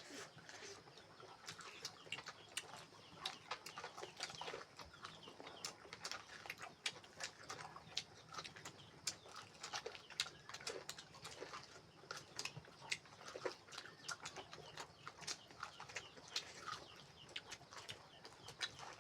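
Close-up eating sounds: chewing and wet mouth clicks and smacks, many short clicks a second, as fruit is eaten.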